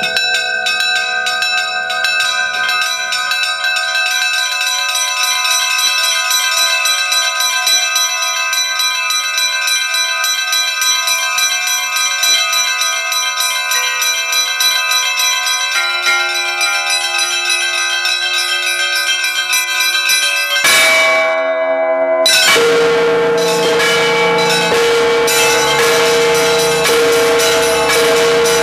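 Russian Orthodox church bells rung by a bell ringer: many bells struck in quick, rhythmic patterns with their tones ringing on and overlapping. About three-quarters of the way through, the small bells break off briefly and the ringing resumes with a deeper bell prominent.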